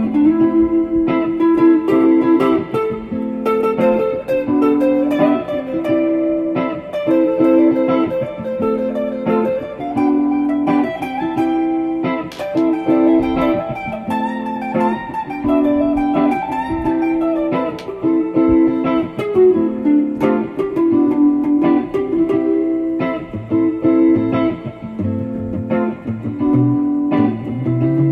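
Guitar music: plucked notes in a steady, repeating pattern.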